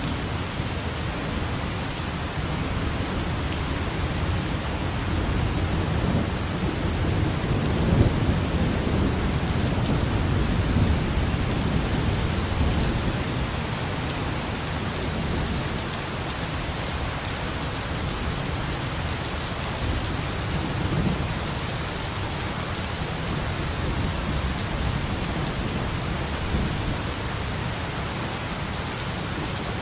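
Heavy rain falling steadily, with low rolling thunder underneath that swells and peaks about a third of the way through, then eases back.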